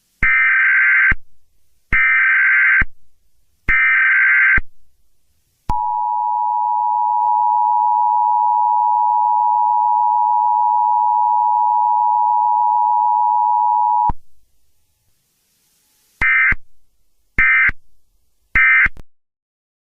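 Emergency Alert System broadcast tones: three data bursts of about a second each, then the steady two-tone attention signal held for about eight seconds, then three short end-of-message bursts.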